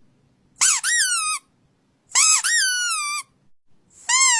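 Squeaky dog toy squeezed three times, giving high-pitched squeaks about a second long, each sliding up and then down in pitch; the third starts near the end.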